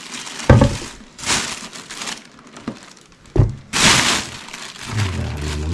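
Rubbish being rummaged through in a dumpster: bags and packaging crinkle and crackle, with several sharp knocks and clatters. A low drone starts near the end.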